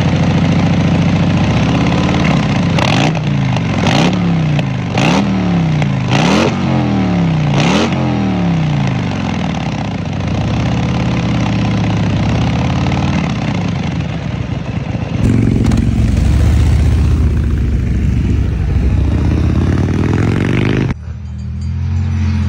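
Harley-Davidson Milwaukee-Eight V-twin idling through a Malparidos 2-into-1 exhaust, blipped five times between about 2.5 and 8 seconds in, each rev rising and falling quickly before it settles back to idle. About 15 seconds in the sound switches to a louder stretch of the engine pulling with steadily rising revs, which stops abruptly near the end.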